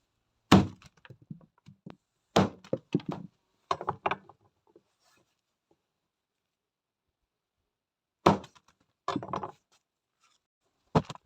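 A series of sharp knocks and thuds, some single and some in quick clusters of several strikes, with a pause of a few seconds in the middle.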